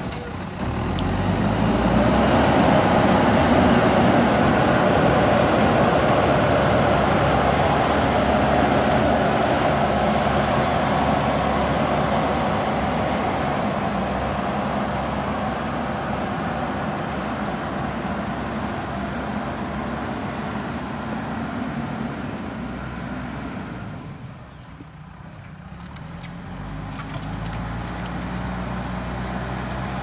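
JCB 3DX backhoe loader's diesel engine running under load as the machine drives forward pushing soil with its front bucket. The sound fades slowly, drops off for a couple of seconds near the end as the engine eases, then picks up again.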